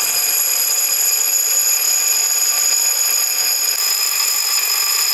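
Bench grinder wheel grinding the edge of a forged steel axe head: a steady, high-pitched grinding whine that holds on without a break.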